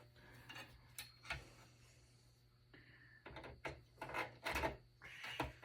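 Light metal clicks and rattles from working on a desktop PC's steel case: a couple of isolated clicks, then a busier run of small knocks in the second half, as the hex screws holding the graphics card are worked loose.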